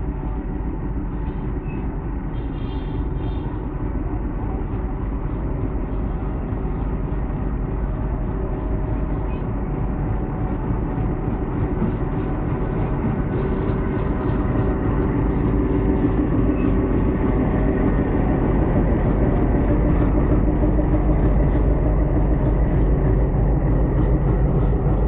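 Diesel locomotive hauling a fully loaded container freight train, its engine running steadily and growing louder as it draws near and passes close by.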